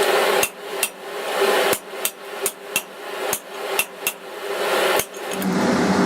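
Hand hammer striking hot mild steel on an anvil, about ten uneven blows with a short ring after each, as the stock is drawn out. A steady rushing hum sets in near the end.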